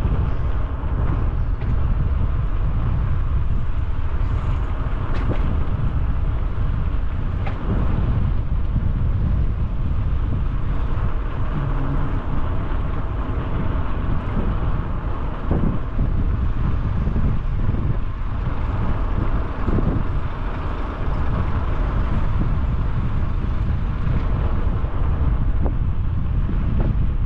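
Wind buffeting the microphone of a helmet-mounted GoPro while cycling along a road, a steady low rumble that does not let up.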